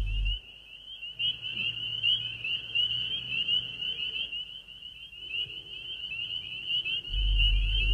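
A steady high-pitched trill, finely wavering like insects, runs throughout. A low hum underneath drops out about half a second in and comes back near the end.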